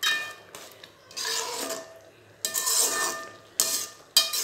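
Metal ladle scraping around an aluminium kadai, stirring thickening rava kichadi that is still cooking. It comes as a run of separate scrapes, roughly one a second, each with a slight metallic ring.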